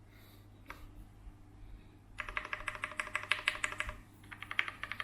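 Fast typing on a mechanical keyboard with linear Cherry MX Black switches and PBT keycaps: a quick run of keystrokes starts about two seconds in, stops briefly near four seconds, then resumes.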